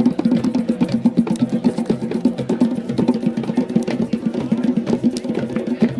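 Didgeridoo droning with a fast pulsing rhythm, over a steady patter of sharp clicks.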